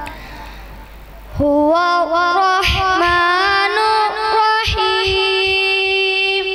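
A boy reciting the Quran in a melodic chanted style. After a short pause for breath he comes back in about a second and a half in, his voice climbing in pitch through ornamented turns, then holding one long steady note from near the five-second mark on.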